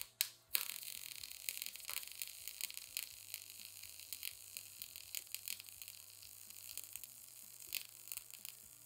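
MIG welding arc from a Harbor Freight Titanium welder crackling and sizzling steadily while a bead is laid with a side-to-side weave, peppered with sharp pops of spatter. It is loudest just after the arc strikes at the start.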